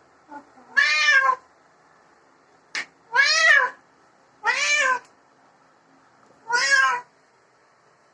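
Domestic cat meowing four times, drawn-out calls that rise and fall in pitch, with a short sharp sound between the first and second meow.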